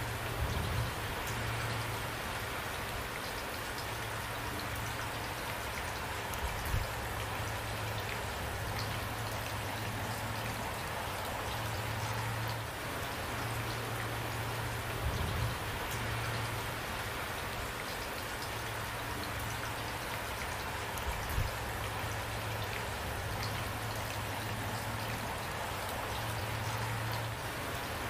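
Steady rain falling, an even hiss of drops. Underneath runs a low hum that comes and goes, and there are four brief low thumps.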